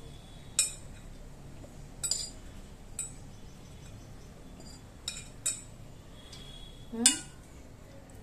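A few light clinks and taps of a glass bowl and utensils against a cooking pot as cooked rice is tipped in and spread, with a louder knock and a brief rising squeak near the end.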